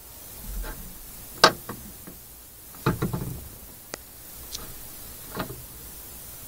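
A cat pawing at a metal window stay and catch, making it click and rattle in several separate knocks; the loudest comes about a second and a half in, with a cluster of rattles near the middle.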